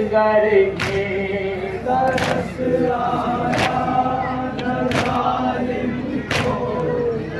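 Men's voices chanting a noha together, with sharp unison hand slaps on the chest (matam) landing in a steady beat about every second and a half, five times.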